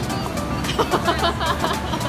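Background music, with a short stretch of a voice over it from about half a second in to near the end.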